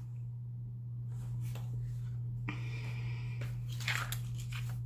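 A steady low hum, with faint rustling and ticking as an eyeshadow palette case is handled and opened, and a soft knock or two near the end.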